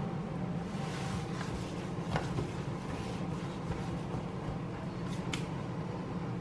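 Steady low background hum in a kitchen, with a couple of faint clicks and knocks as a raw pizza is pulled and settled onto a metal pizza peel, once about two seconds in and again near the end.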